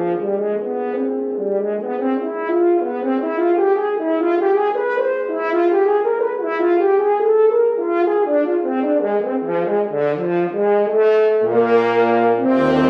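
Instrumental ensemble music: several melodic parts moving in short notes together, with a low part coming in near the end.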